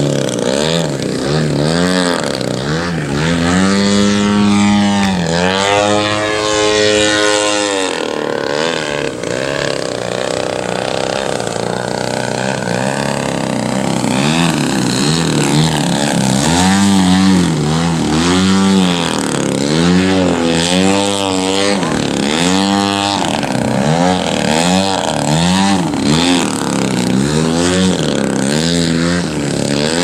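Engine and propeller of a large radio-controlled aerobatic plane, revving up and down over and over as it hovers and manoeuvres low over the runway.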